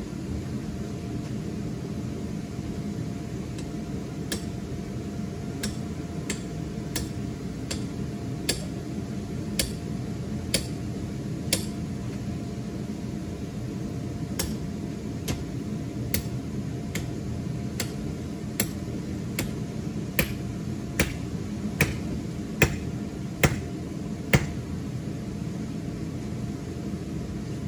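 Inflatable waterslide's electric blower running steadily, keeping the slide inflated. Over it come sharp, short clicks about a second apart, loudest near the end.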